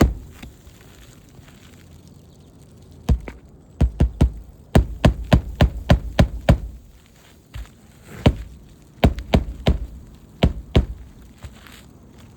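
Hammer driving roofing nails into a new shingle: groups of sharp blows with short pauses between nails, including a quick run of about eight strikes at roughly four a second in the middle.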